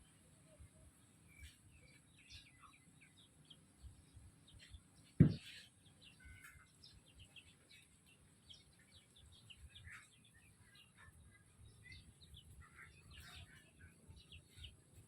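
Chickens calling with many short, scattered chirps, with one loud thump about five seconds in.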